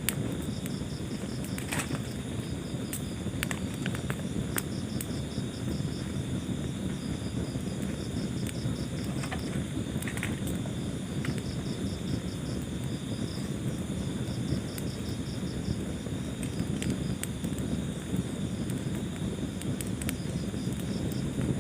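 Wood fire burning in a fireplace: a steady low rumble with scattered sharp crackles and pops. Crickets chirp in repeated high-pitched pulse trains throughout.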